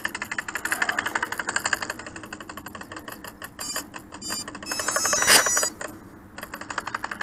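Rapid, even ticking from the model plane's pulse-proportional single-channel rudder actuator as it pulses the rudder back and forth, with a brief pause near the end. A louder rush of noise comes a little past five seconds in.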